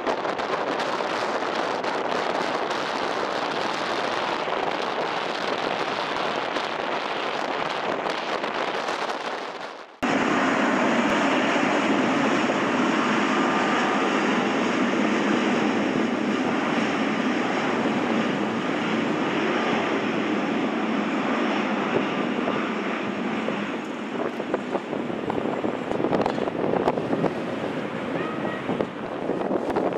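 Boeing 777-300ER's GE90 jet engines running at taxi power: a steady rushing hiss with a faint whine. In the first part wind noise on the microphone mixes in. About ten seconds in the sound cuts off abruptly and comes straight back as steadier, closer engine noise.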